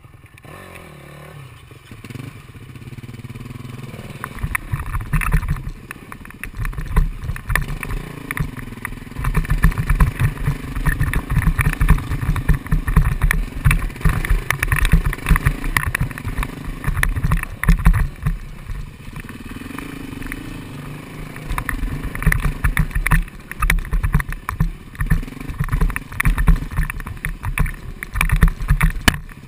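Dirt bike engines running on a rough rocky trail, their pitch rising and falling with the throttle, louder from about four seconds in. Many knocks and thumps come through as the bikes jolt over the rocks.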